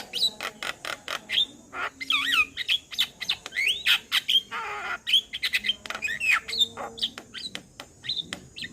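Male Javan myna calling in a fast, varied stream of sharp clicks and short whistled glides, broken by one harsh rasping note about halfway through.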